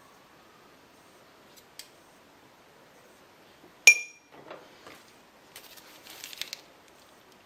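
One sharp clink of a utensil striking a dish, ringing briefly, about four seconds in, followed by softer clattering and rustling of kitchenware.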